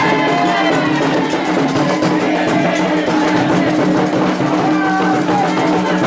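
Music playing continuously, with steady held low notes, several wavering voice-like melodic lines, and a regular percussive pulse.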